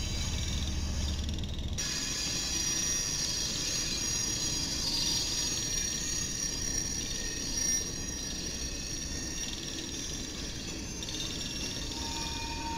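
Freight cars rolling past on steel wheels: a low, steady rumble with thin, high wheel squeal riding over it.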